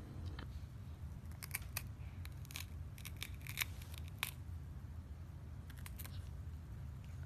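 A small child biting and chewing raw bitter melon: a run of crisp crunches through the middle, and a couple more near the end.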